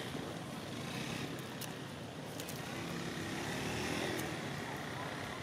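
Steady hum of road traffic, swelling a little around the middle and easing off again.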